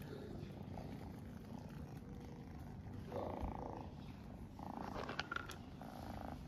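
Mother cat purring, a steady low rumble with louder stretches about every second and a half in the second half, and a few sharp clicks a little after five seconds in.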